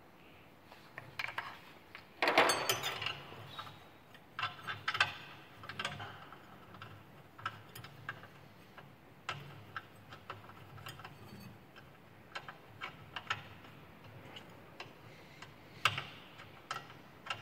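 Scattered small metal clicks and clinks, with a louder clattering scrape about two seconds in, from hands and a wrench working on the new oil nozzles and the electrode assembly of a Riello two-stage diesel burner head.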